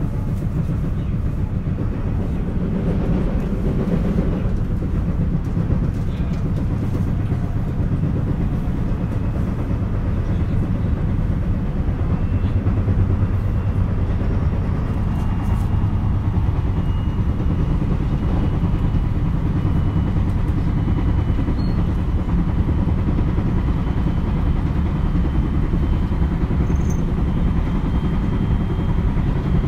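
JR West 223 series electric train running at speed, heard from inside the KuMoHa motor car. Under the steady running noise is a rhythmic pounding from a flat spot on a wheel. A faint high whine rises slowly in pitch through the second half.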